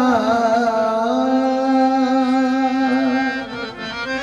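A man singing a long, wavering held note in a Bengali marfati devotional song, over a harmonium. The note dies away about three and a half seconds in, leaving the harmonium playing.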